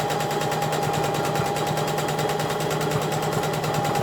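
Electric sewing machine running at a steady speed, its needle going up and down in a rapid even rhythm over a steady motor whine, sewing a row of stitching through a waistband to hold the elastic in place.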